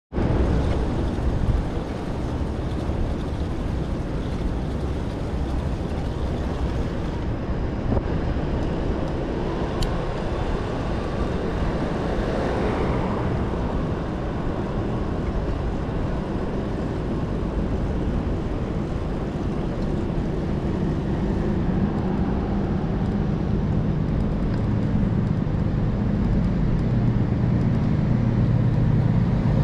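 Downtown street traffic noise, a steady rumble with a vehicle passing about twelve seconds in and a low hum growing louder over the last several seconds. A brief high ping sounds about ten seconds in.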